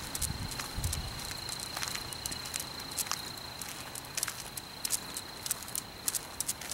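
Walking sounds of a person and a leashed dog on asphalt: irregular light clicks and scuffs, over a steady thin high-pitched tone.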